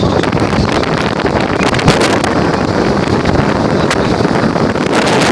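Wind buffeting the microphone aboard a moving boat, a loud, steady rush with crackling gusts over the boat's engine and water noise.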